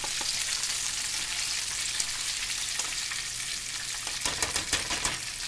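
Flour-coated chicken wings deep-frying in hot oil in a pot, a steady high crackling sizzle. About four seconds in comes a run of clicks and taps as metal tongs lift wings out against the pot.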